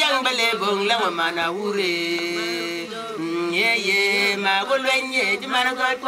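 Voices singing a repetitive, chant-like song in an African language, unaccompanied, with notes held and sliding from one pitch to the next.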